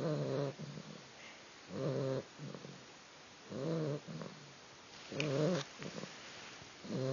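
Sleeping puppy snoring: a buzzy, pitched snore on each breath in, about half a second long, coming about every 1.8 seconds, with a softer breath out between them.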